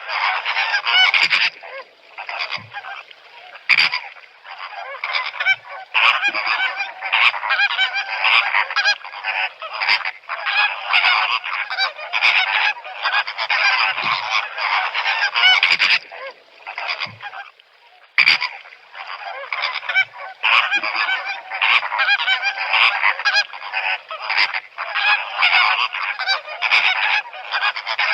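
A flock of flamingos honking, with many nasal calls overlapping in a constant chatter. There are two short lulls, one a couple of seconds in and one about two-thirds of the way through.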